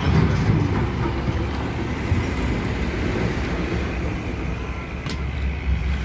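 A lorry's diesel engine running close by, a steady low rumble that is loudest in the first second. A single sharp click comes about five seconds in.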